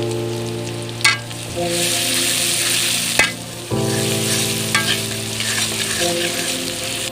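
Chopped onion and whole spices sizzling in hot oil in a karahi, stirred with a spatula that knocks against the pan a few times. The onions are being fried until lightly reddened.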